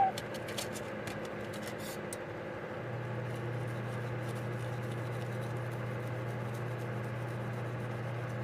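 A quick run of small clicks and light scratching from small carburetor parts being handled, then a steady low hum that begins about three seconds in.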